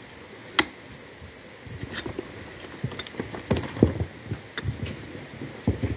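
A long-handled pick striking rocky ground: a sharp clink about half a second in, then irregular knocks, thuds and clattering of loose stones and earth as the ground is broken up.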